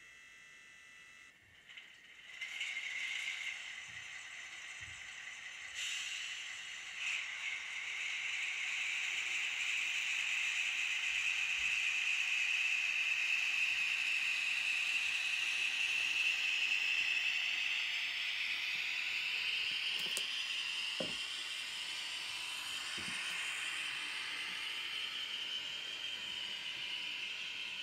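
Sound decoder of a Fleischmann N-scale BR 260 model diesel shunter playing its diesel engine sound through the tiny onboard speaker as the locomotive starts and slowly pulls away. The sound comes in about two seconds in and rises, thin and high with no bass, with a few short clicks about twenty seconds in.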